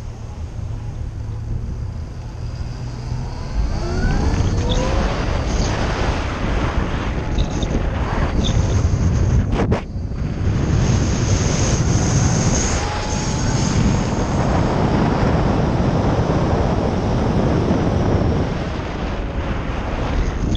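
Wind rushing over the microphone and road noise as a vehicle pulls away from a stop and rides on. A rising whine comes as it speeds up about four seconds in, and a sharp click sounds near the middle.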